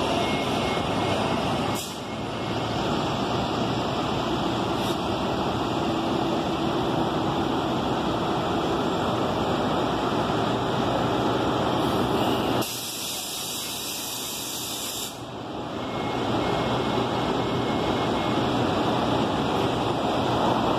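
City transit bus engine running close by over steady street traffic noise. For a couple of seconds about two-thirds through, the low rumble drops away and a hiss takes over.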